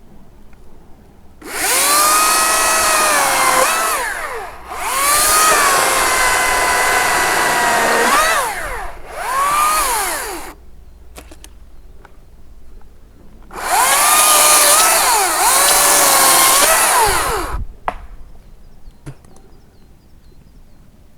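Makita 40V cordless top-handle chainsaw cutting dead branches, running in four bursts of a few seconds each. Its electric whine drops in pitch as the chain bites into the wood and rises again as it frees, with a longer pause before the last cut.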